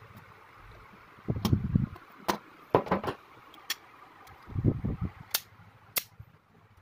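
Plastic and metal parts of a toy scale-model car clicking and knocking as they are handled and fitted together, with several sharp clicks and two spells of low rubbing and bumping against the table, about one and a half seconds in and again about five seconds in.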